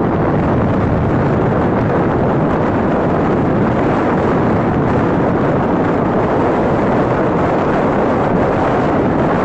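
Steady wind buffeting on the microphone of a motorcycle riding along a dirt trail, with the bike's engine running underneath.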